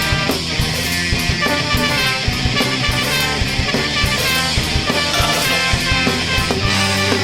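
Ska-punk band playing a loud rock passage: distorted electric guitar, bass and a drum kit hitting steadily throughout.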